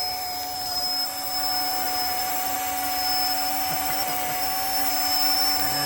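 Small RC helicopter's electric brushless motors running with a steady high whine under a rushing hiss.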